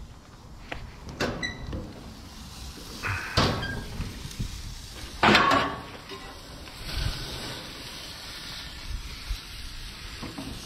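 Stainless steel gas grill's hood being handled and opened: a few metal knocks, the loudest a ringing clunk about five seconds in. After that a cheeseburger patty sizzles over the lit burner while a metal spatula scrapes under it on the grate.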